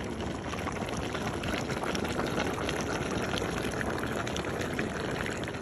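Pork pieces with onions and bell peppers sizzling as they brown in a large black pot: a steady crackling hiss.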